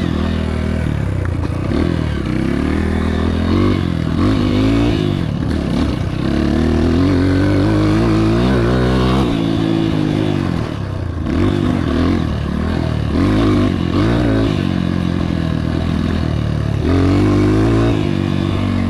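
Honda CRF230 dirt bike's single-cylinder four-stroke engine being ridden hard off-road, its revs rising and falling repeatedly, with one longer climb in pitch around the middle that drops off sharply.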